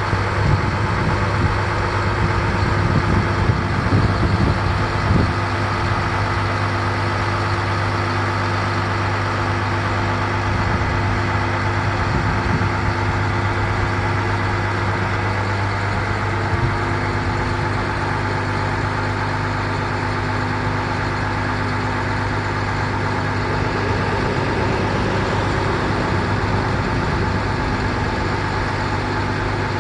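International 4300 truck's diesel engine idling steadily, with a constant low hum. Some uneven low rumble comes through in the first few seconds.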